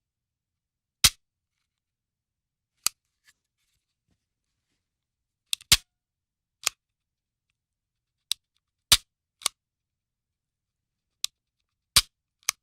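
Handgun dry-firing: the hammer or striker snaps on an empty chamber, giving about a dozen sharp metallic clicks at irregular intervals of one to two seconds, a few of them in quick pairs.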